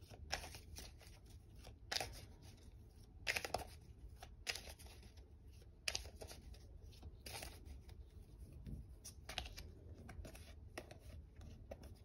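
Deck of oracle cards being shuffled and handled, giving short, irregular crisp snaps and slides, about eight or nine spread through, over a low steady room hum.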